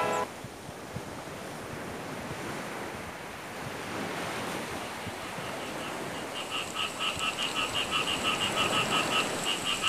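Sea surf breaking and washing on a sandy beach, a steady rushing. About six seconds in, a fast, even chirping joins it, roughly five or six pulses a second.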